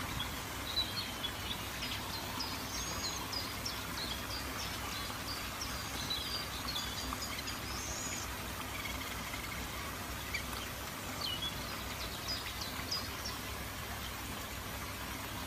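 Small birds chirping and twittering in quick runs of short, high notes over a steady background hiss. The calls are busiest in the first half and return in a few bursts later.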